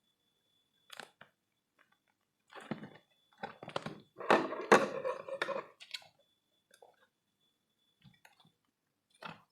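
Packaging being handled during an unboxing: irregular crinkling and crunching rustles with scattered clicks and taps, busiest in the middle.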